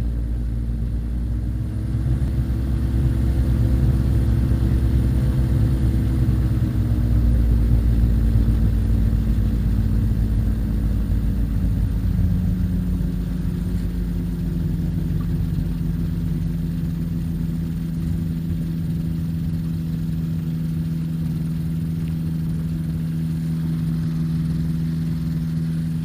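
Rotax 582 two-stroke engine of a Spectrum Beaver ultralight with wind on the microphone as it lands: the engine's pitch drops in the first several seconds, then the wind noise fades and the engine settles to a steady idle about twelve seconds in as it rolls along the runway. The owner judges that the engine sounds good again after a bad bearing in its gearbox.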